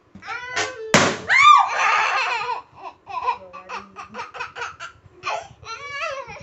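A balloon bursts with a single sharp pop about a second in, blown up until it gave way. A loud shriek follows straight after, then a long run of laughter.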